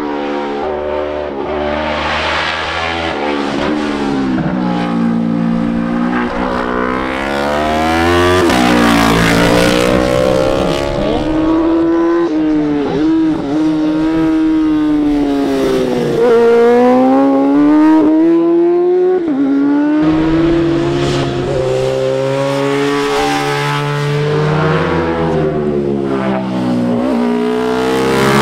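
Racing motorcycles at full throttle, one after another, revving up through the gears, shifting down, and rising and falling in pitch as they approach and pass. Loud throughout, with the loudest passes in the second half.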